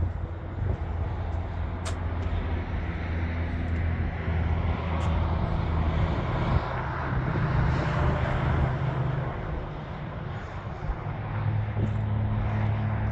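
Semi-truck engine running while driving on the highway, heard from inside the cab: a steady low drone over road noise, with the engine note changing pitch about midway and again near the end.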